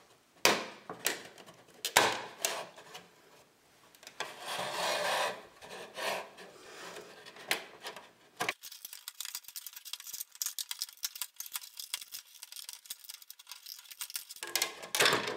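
Plastic clip-on inner cover of an electric meter being worked loose by hand: plastic rubbing and scraping against the meter base, with sharp clicks from the tabs, the two loudest about half a second and two seconds in. The second half is fainter, fine crackly rubbing.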